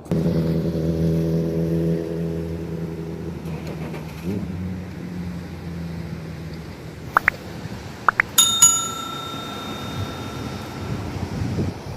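A steady motor-like hum at the start fades out within the first few seconds. Two short rising chirps follow. About eight seconds in, a bell is struck once and rings on for a couple of seconds.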